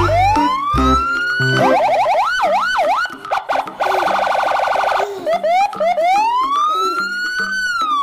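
Electronic ambulance siren: long rising wails, then a fast warbling yelp, a rapid pulsing tone, and more long rising wails. A light music beat runs under it for the first second or so.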